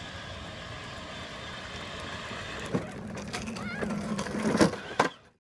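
Children's ride-on toys rolling on asphalt, a toy race car and a plastic big-wheel tricycle. A steady low hum joins about three seconds in, and a couple of sharp knocks come near the end as the toys bump together.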